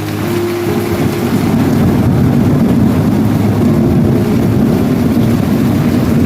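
Rolling thunder: a long, loud, steady low rumble that swells up at the start, over the hiss of heavy rain.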